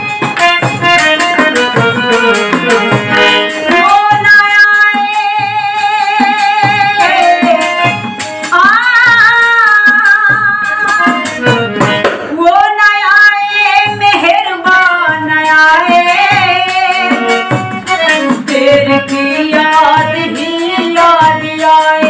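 A woman singing a ghazal in long held notes, accompanied by a harmonium and a small hand-held frame drum beating a steady rhythm.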